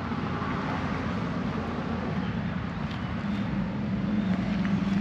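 Steady background rumble of traffic, with a low hum that grows stronger in the second half and stops abruptly near the end.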